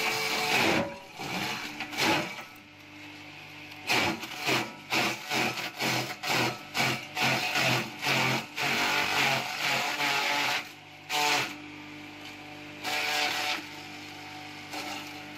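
Water buffalo tearing and crunching fresh-cut forage grass at a trough: a quick run of crisp bites, about two to three a second, through the middle, with a few single bites before and after. A steady low hum runs underneath.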